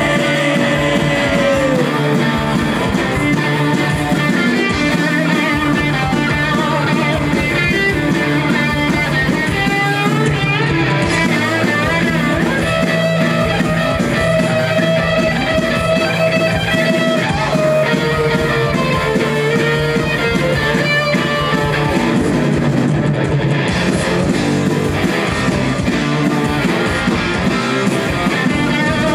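Punk rock band playing live and loud, with electric guitar to the fore over bass.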